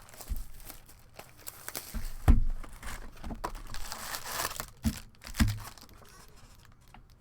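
Trading card pack wrappers crinkling and tearing as baseball card packs are opened and the cards handled, with a few sharp thumps, the loudest about two seconds in.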